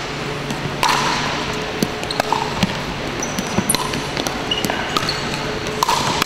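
Pickleball rally: paddles striking the hollow plastic ball in a series of sharp pops, about one a second, with short sneaker squeaks on the hardwood court, echoing in a large hall.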